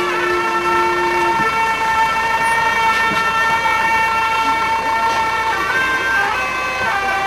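Wind instruments playing a slow line of long held notes. A low note drops out about a second and a half in, and the melody steps to new notes near the end.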